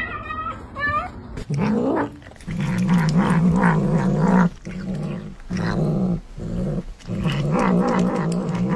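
Tabby kitten giving a couple of short high meows, then growling in long, low, wavering stretches with short breaks while it gnaws at its food.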